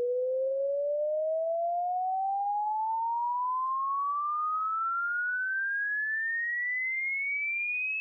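Hearing-test tone: a single pure sine tone sweeping smoothly and steadily upward in pitch, from a mid-low pitch to a high whistle, at an even loudness.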